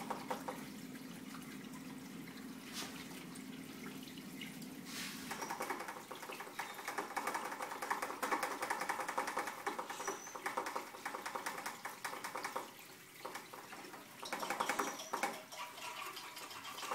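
Wort running from a brew kettle's valve through a plastic tube into a glass carboy, splashing and trickling into the foamy liquid as the carboy fills. The flow grows fuller about five seconds in.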